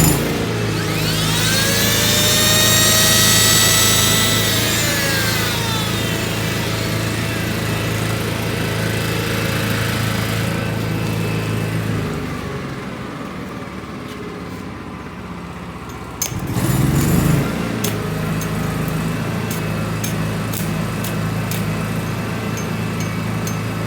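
Shindaiwa EGW150M engine-driven welder/generator running just after start-up, with a high whine that rises and falls in the first few seconds. The engine note drops off about halfway through and picks up again with a surge about two-thirds of the way in. Sharp ticks follow near the end.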